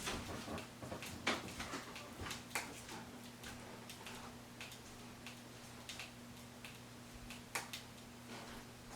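Quiet room with a faint steady electrical hum and scattered faint clicks and knocks, a few louder ones about a second and a half in and near the end.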